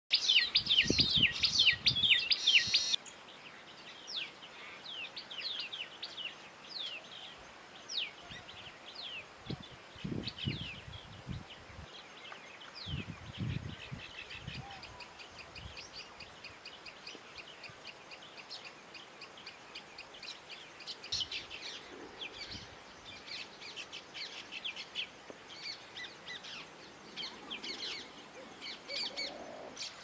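Baya weavers chirping and chattering in a flock, many short quick chirps that fall in pitch. They are loud and packed together for the first three seconds, then softer and scattered. A faint steady high whine runs underneath, and there are a few soft low thuds.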